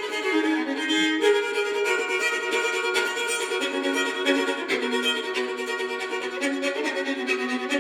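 Solo fiddle in sawmill tuning playing a fast traditional tune, several notes ringing together as the open strings sound alongside the melody.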